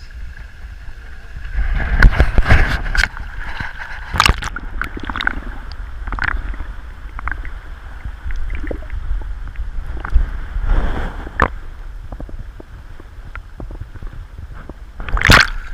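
Water splashing and sloshing in irregular bursts, loudest about two seconds in and again near the end, over a low rumble of wind on the microphone.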